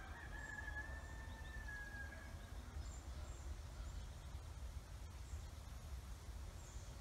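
Quiet outdoor ambience with a low wind rumble; a faint whistled note, like a bird call, is held for about two and a half seconds near the start, with faint high chirps later.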